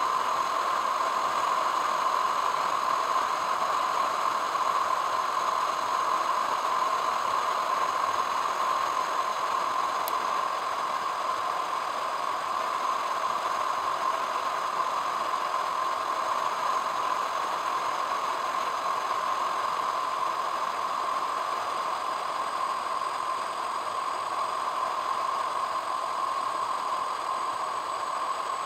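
Steady driving noise of a car on a paved road: an even rush of tyre and engine noise, as picked up by a camera mounted on the vehicle.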